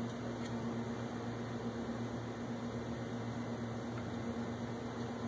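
Steady low mechanical hum with a faint hiss, unchanging throughout, with a faint click about half a second in.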